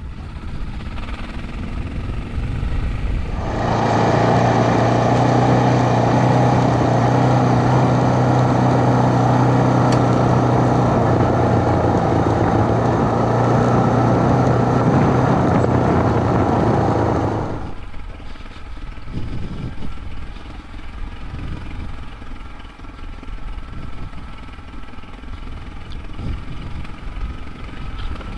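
Suzuki DR650's single-cylinder four-stroke engine running as the bike is ridden on a dirt track. About three seconds in it gets much louder and holds a steady note for some fourteen seconds, then drops back to a quieter, uneven running sound.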